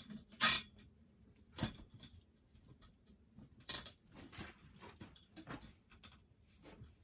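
Irregular clicks and light handling noise as a thin cable is fastened by hand to a metal tent-frame roof pole with small red clips. The sharpest clicks come about half a second in and near four seconds, with fainter ticks between.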